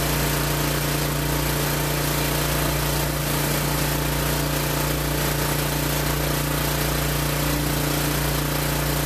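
Generac 2700 PSI gas pressure washer engine running steadily under load, with the hiss of high-pressure water spraying from a rotary hard surface cleaner onto concrete.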